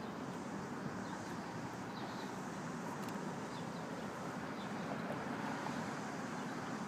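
Steady hum of road traffic, with faint short high bird chirps every second or so.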